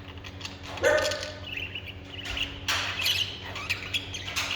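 A dog barking a couple of times, with separate short barks about a second in and around three seconds.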